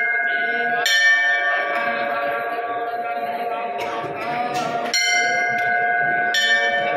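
Temple bell struck three times, about a second in, near five seconds and again about a second and a half later, each strike ringing on in a long, steady, bright tone until the next.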